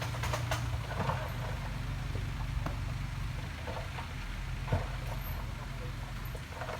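Heavy diesel engine of construction machinery running steadily at a low drone, with occasional short knocks.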